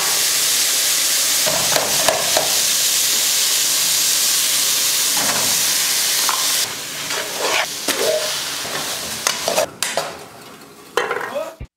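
A pot of soup boiling on a stove, giving a steady hiss with a few knocks from the pot or utensils. The hiss drops off after about six and a half seconds, leaving quieter bubbling and knocks.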